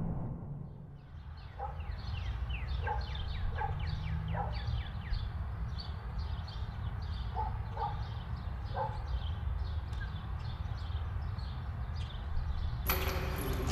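Animal calls: rapid, short, high calls falling in pitch, a few a second, with a few lower yelps among them, over a steady low hum. A louder noisy sound starts near the end.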